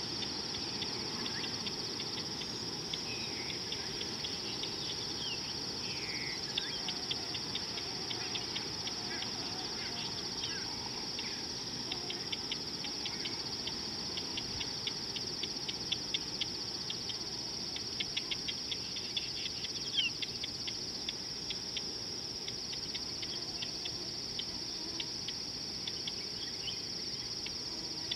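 Insects trilling in a steady, unbroken high-pitched drone, over a stream of short, fast ticks that grow denser about halfway through. A few brief bird chirps come through in the first half.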